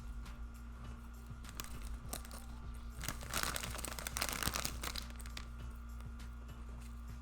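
Close-up eating sounds: crunching with crinkling, loudest for about two seconds near the middle, and soft mouth clicks around it.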